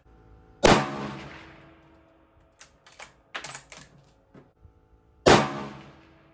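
Two .223 rifle shots from a Ruger American Gen II bolt-action rifle firing Federal 55-grain ammunition, about four and a half seconds apart, each dying away over about a second. Between them come a few quick metallic clicks as the bolt is worked to chamber the next round.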